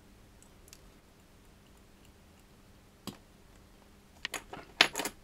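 Small sharp clicks of watchmaker's metal tools against the parts of a Bulova Accutron 214 movement being dismantled: one click about three seconds in, then a quick run of clicks near the end.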